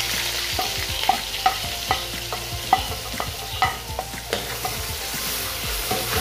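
Ground spices and garlic sizzling in hot oil in a karahi, stirred with a metal ladle that clicks and scrapes against the pot about a dozen times.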